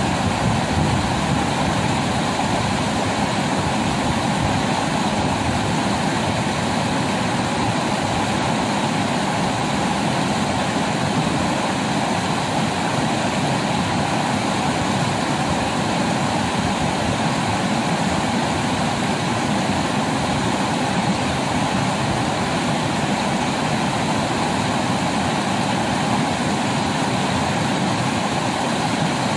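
River rapids: a steady rush of whitewater pouring over rocks, even and unbroken.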